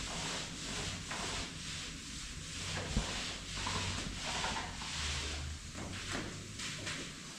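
Paint roller rubbing up and down a plastered wall in repeated strokes, with one sharp knock about three seconds in.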